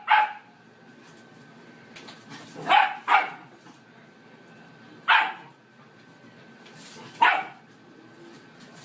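A dog barking in short, sharp single barks: one at the start, two close together about three seconds in, then one more about every two seconds.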